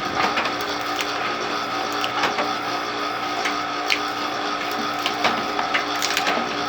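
Automatic cashew nut cutting machine running: a steady mechanical hum with irregular sharp clicks and clacks from its mechanism.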